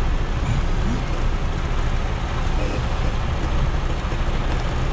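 Semi truck's diesel engine running as the tractor moves slowly, a steady rumble.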